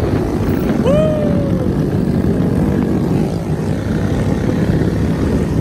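Small motorcycle engines of a group of mini bikes and motorcycles running on the street as a dense, steady low rumble. About a second in comes a single short pitched call that rises and then falls.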